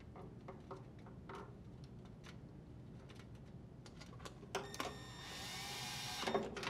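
Drill driver with a quarter-inch bit running for about a second and a half near the end, driving the ground screw into the dryer's sheet-metal backsplash panel, and stopping with a knock. A few light clicks come before it.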